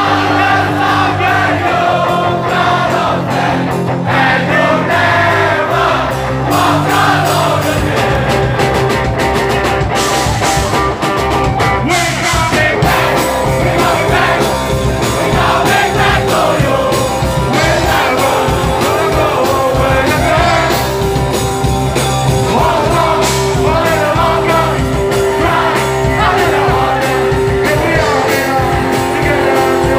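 Live hardcore band playing loud through a PA: distorted electric guitars, bass and drums, with vocals and the crowd singing along. The first few seconds are held chords under the singing, and the full band with drums comes in about seven seconds in.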